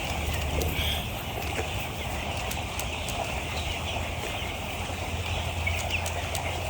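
A flock of broiler chicks peeping together in a dense, continuous chatter over a steady low hum, with scattered light clicks.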